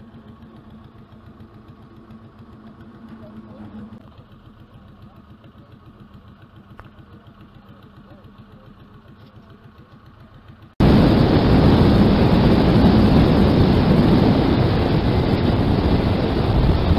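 Small engines of fuel-barge pumps running with a steady, rapid chugging. About eleven seconds in this cuts abruptly to much louder wind blowing on the microphone.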